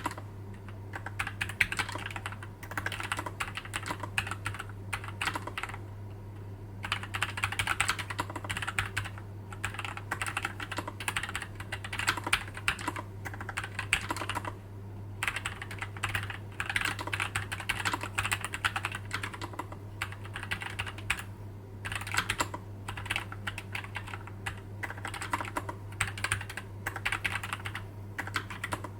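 Typing on a MuPhy Air96 low-profile keyboard with Gateron Low Profile 2.0 Red linear switches: fast runs of keystrokes with a few short pauses between them, over a steady low hum.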